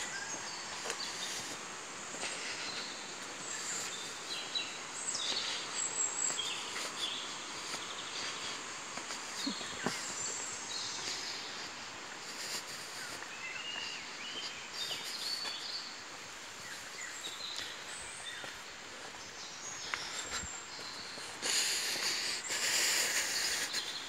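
Woodland birds chirping and singing over a steady rushing noise from the nearby waterfall. Near the end a louder bout of rustling noise rises above it.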